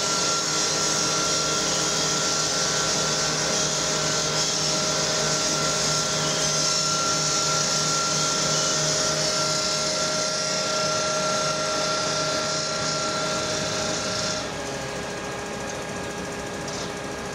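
A motor running steadily with a constant whine over a hiss. About fourteen seconds in the whine stops and a quieter, steady hum carries on.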